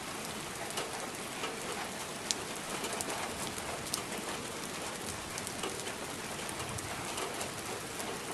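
Steady rain with scattered sharp drips, and a few faint, low bird coos now and then.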